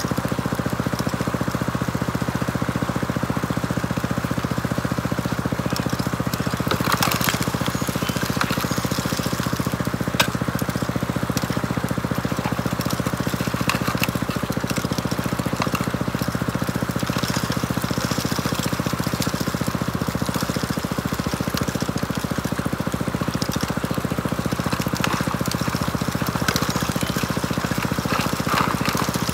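Small engine-driven water pump feeding a high banker, running steadily, with water washing through and a few sharp clatters, the sharpest about ten seconds in.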